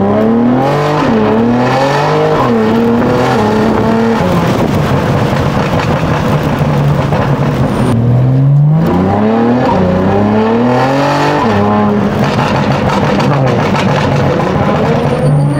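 BMW G80 M3's twin-turbo inline-six, on a full titanium exhaust with catless downpipes, accelerating hard through the gears twice, heard from inside the cabin. The pitch climbs and drops back at each upshift, with a steadier, rougher run of engine noise between the two pulls.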